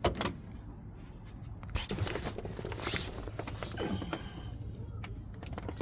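Tools and engine parts being handled: a sharp click, then a few scrapes and rustles, one with a short falling squeak, over a steady low hum.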